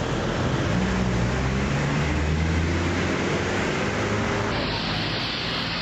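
Steady street noise of road traffic and running engines, with a low engine hum under an even wash of noise. The sound shifts slightly about four and a half seconds in.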